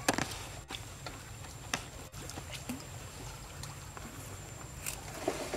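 Water splashing and lapping as monkeys swim and move about in a pool, with one sharp splash right at the start and a few smaller splashes later.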